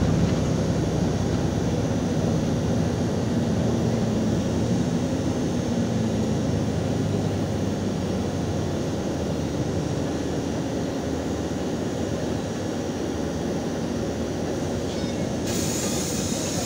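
Cabin noise of a LiAZ 5292.22 city bus in motion: a steady engine hum and road rumble that ease off as the bus slows toward a stop. Near the end a sudden hiss of compressed air starts.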